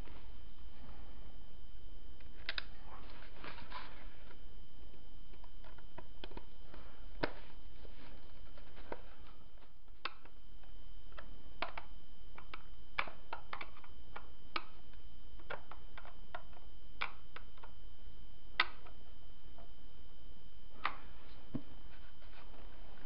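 Scattered light clicks and ticks of small screws being screwed back into a G&G F2000 airsoft rifle during reassembly, over a steady low hum.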